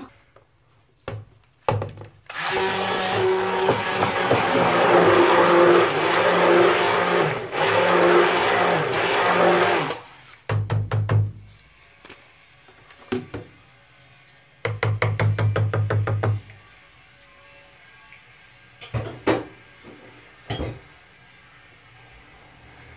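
Plastic hand blender running in a bowl of used cooking oil, flour and potash lye, mixing it into soap until it thickens: one run of about eight seconds, then two short bursts, with a few knocks in between.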